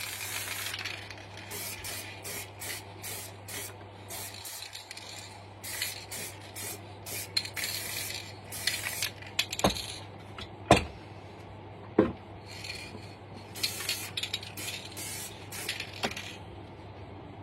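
Aerosol can of Montana Chrome Silver spray paint hissing in repeated short bursts as a coat is sprayed on. A few sharp knocks come around the middle, over a steady low hum.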